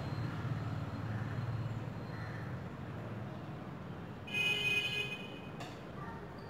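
Steady low background rumble, with a short high-pitched call made of several steady tones about four seconds in, lasting about a second.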